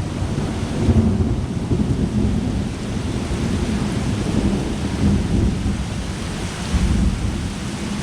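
Heavy rain with rolling thunder: a continuous low rumble under steady rain hiss, swelling about a second in and again near the end.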